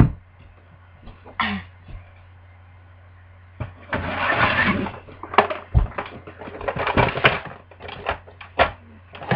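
Handling noise: a sharp knock at the start, then, from about halfway through, a stretch of rustling followed by many quick clicks, knocks and short bursts of noise as things are moved about and picked up, over a steady low electrical hum.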